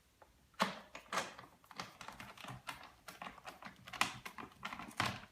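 Irregular hard plastic clicks and taps, starting about half a second in: the door hinge cover of a Hotpoint TL61 tumble dryer being handled and pressed into its seat.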